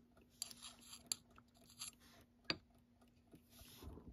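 Faint, scattered small clicks and taps of fingers handling a brass Westclox Big Ben alarm clock movement, a few seconds apart, over a faint steady low hum.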